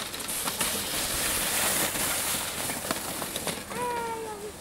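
Snowracer runners hissing and scraping over snow as the sled slides down the hill and past, with a few knocks. Near the end a child gives a long call that falls in pitch.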